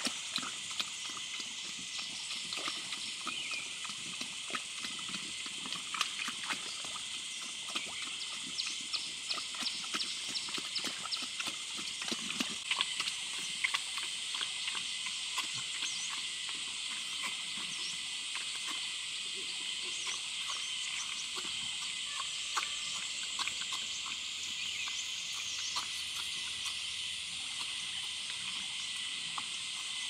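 Animals moving about: many quick clicks and knocks over a steady high-pitched drone. The clicks thin out in the second half.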